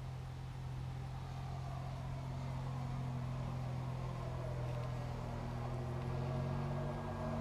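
Brushless electric motor and propeller of a radio-controlled model Pilatus PC-6 Porter running in flight: a steady hum under a whine whose pitch sinks slowly over several seconds.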